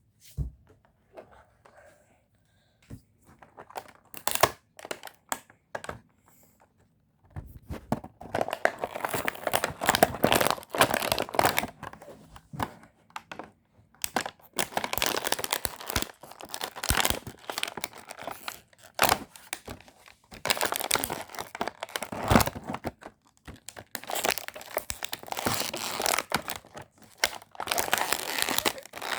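Packaging of a boxed dinosaur toy being torn open and crumpled by hand. A few scattered clicks and rustles come first; from about seven seconds in there are long bouts of loud crinkling and tearing with short pauses.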